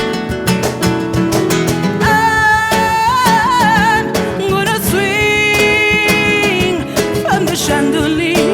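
Acoustic guitar strummed in a steady rhythm, joined about two seconds in by a singer holding long wordless notes with vibrato and sliding runs.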